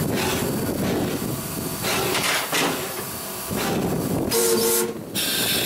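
Steam locomotive at work, heard from inside the cab: a steady hiss of steam and running noise that surges and eases unevenly. A little over four seconds in comes a short chord-like blast of the steam whistle, the loudest sound here.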